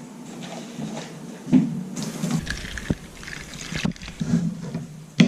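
Liquid poured into a cereal bowl: a steady pour lasting about two seconds in the middle, with a few light knocks around it and one sharp knock at the end.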